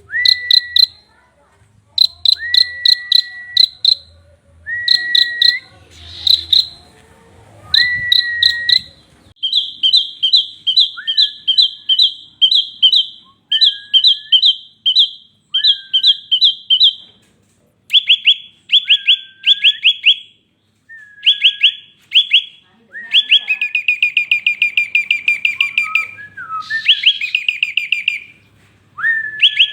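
A prinia (prenjak) singing loudly in repeated phrases. Each phrase is a short slurred note followed by a quick run of sharp, high notes, recurring every second or two. In the last third of the song the phrases turn into faster, longer trills. A faint low hum sits under the first few phrases.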